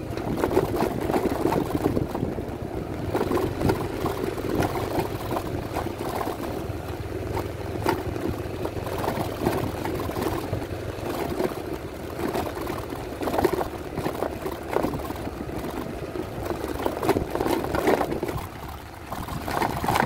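Yamaha NMax 155 scooter's single-cylinder engine running steadily under load up a rough dirt and stone track, with tyres and bodywork knocking over the bumps. The engine eases off briefly near the end.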